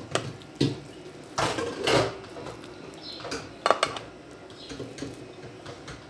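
A spoon knocking and scraping against a plate while scooping out mashed potato: several separate clinks and one longer scrape about a second and a half in.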